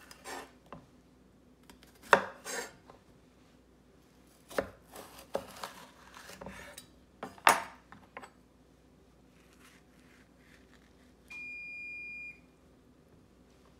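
Chef's knife cutting through a bitter melon onto a wooden cutting board: several sharp knocks of the blade on the board, the loudest about seven seconds in. Near the end, a steady high electronic beep lasting about a second.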